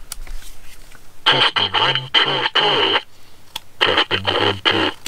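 A man's voice coming out of a handheld Forum Novelties voice disguiser's small speaker, turned into a deep, flat, electronic alien-like voice. It speaks in two short phrases, about a second in and again near the end.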